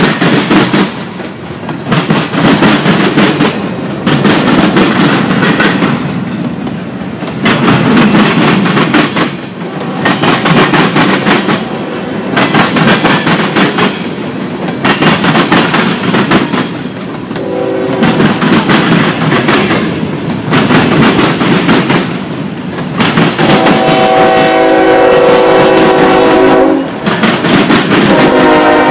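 Freight train cars (covered hoppers, tank cars and gondolas) rolling past, their wheels clacking rhythmically over the rail joints. A train horn sounds briefly a little past halfway, then again in a long blast through the last few seconds.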